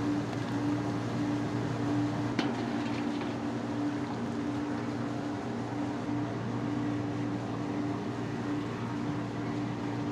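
Steady machine hum, a constant low drone with an even mechanical rush, with a single sharp click about two and a half seconds in.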